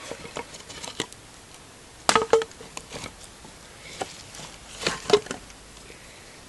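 Finger-thick wooden sticks knocking and clattering together as they are picked off a woodpile, in two loud bursts about two and five seconds in, with light clicks and crackles between.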